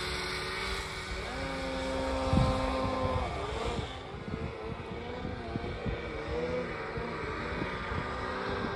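Snowmobile engine running under way, its pitch rising and falling with the throttle, with a thump about two and a half seconds in and smaller knocks after.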